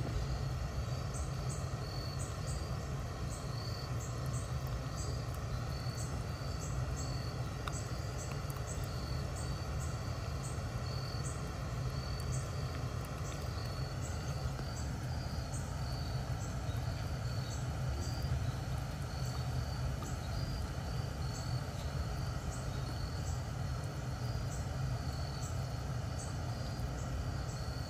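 Insects chirping outdoors: short, high chirps repeating irregularly about twice a second, over a steady low rumble.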